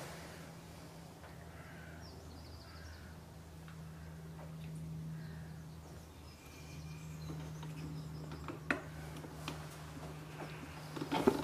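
Quiet lakeside ambience with a steady low hum and a few faint distant bird calls. Near the end, a quick cluster of knocks and clicks from the camera being handled as it pans.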